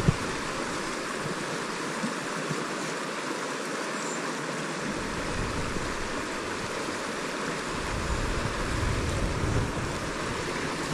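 Steady rushing and hissing of the River Tay's fast, shallow water flowing around a wading angler, with rain falling on the river. A low rumble comes in about halfway through.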